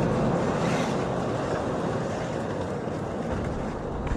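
A vehicle engine running steadily with a loud, even rumble.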